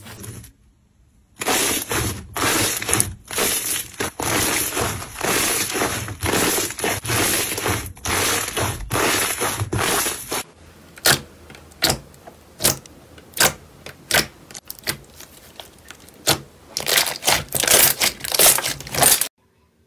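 Hands squeezing and kneading slime, making dense crackling and popping. After a short quiet start, a thick run of crackles goes on for several seconds. It thins to separate pops about one or two a second, then turns dense again and cuts off suddenly near the end.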